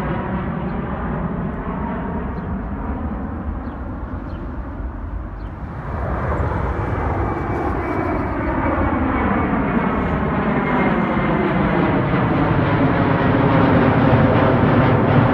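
Jet airliner engines on takeoff climb. For the first six seconds a departing twin-jet fades as it climbs away, its engine pitch falling. Then, after a sudden change, an Aer Lingus Airbus A330's engines grow steadily louder as it passes low overhead.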